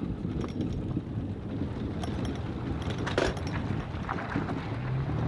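Wind rumbling on the microphone as the bass boat moves, with a sharp knock about three seconds in. A steady low motor hum comes in near the end.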